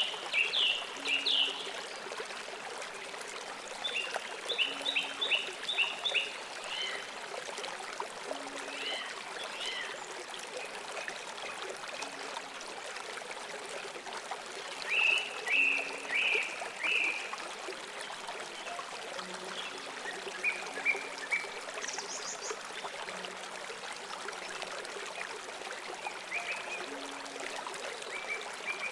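A flowing stream, a steady rush of water, with small songbirds chirping in quick runs of high notes every several seconds.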